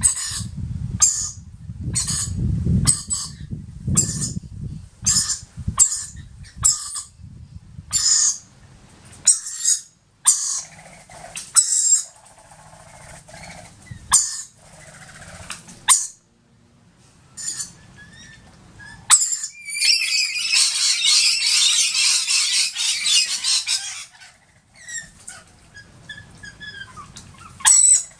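Rainbow lorikeets: a juvenile's short, high squeaks repeat about once or twice a second, then come more sparsely. About twenty seconds in there are four seconds of dense, loud lorikeet chattering screeches. A low rumble lies under the first few seconds.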